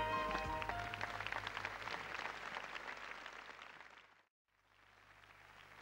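Last notes of the dance music end within the first second, followed by audience applause that fades, cuts out briefly about four seconds in, then comes back faintly.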